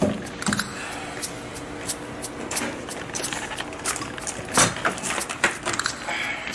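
Clicks and knocks from a semi-truck cab's door handle and door being worked open, the loudest knock about four and a half seconds in, over a faint steady hum.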